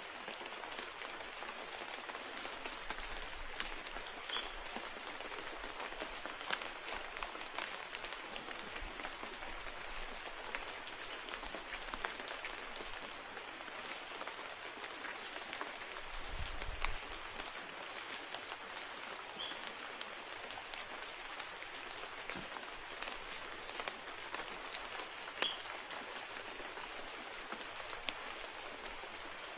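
Rain pattering steadily on forest foliage, with many small drips ticking through it. A few brief high chirps are heard, and there is a low thump about sixteen seconds in.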